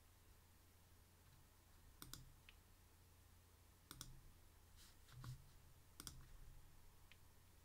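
Near silence over a low steady hum, broken by a few faint computer mouse clicks, including two quick double clicks, made while ending a live stream.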